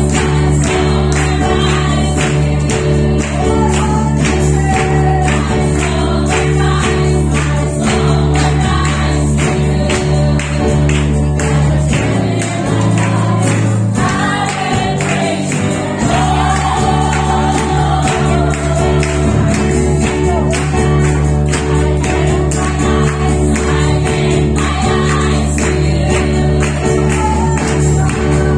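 A women's choir singing a gospel worship song into microphones over a steady bass accompaniment and a regular rhythmic beat. The lowest bass notes drop out for a few seconds midway, then return.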